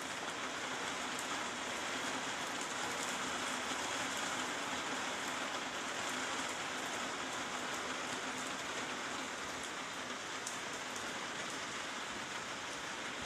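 Steady rain falling on trees and rooftops, a constant hiss with scattered faint drip ticks, as water runs off the roof edge.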